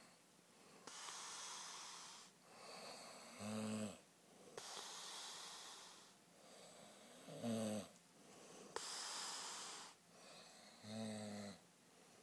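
A person snoring in a steady rhythm: three snores about four seconds apart, each a short, low, buzzing rasp, with long hissing breaths between them.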